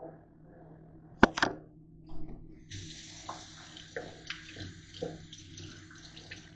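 A sharp knock about a second in, then a kitchen faucet running into a stainless steel sink from about two and a half seconds in, with a cloth and hands being rinsed under the stream.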